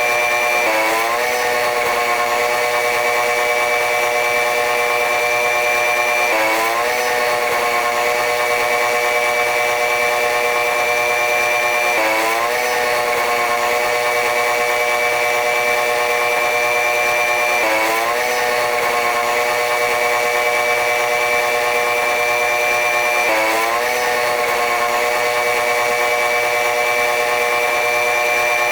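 Running noise of a train hauled by a diesel-electric locomotive: a steady, loud drone made of several pitched tones. A short rising sweep in pitch comes back at even intervals, about every six seconds, five times.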